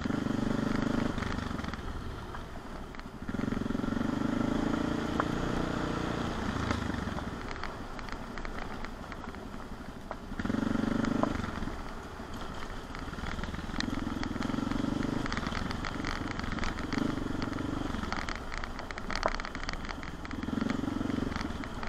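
CCM 644 R30 supermoto's single-cylinder engine running at low revs, swelling in several short bursts of throttle and dropping back between them. Tyres crackle over the stony dirt track.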